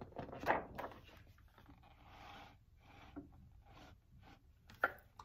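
A large paper page of a big picture book being turned and smoothed flat by hand: soft rustling and rubbing, with a brief tap near the end.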